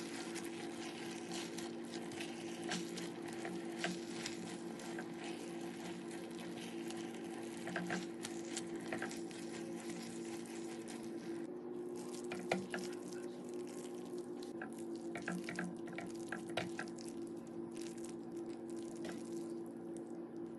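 Kitchen cooking sounds: a steady hiss over a low hum, with scattered clicks and clinks of utensils. The hiss thins about halfway through.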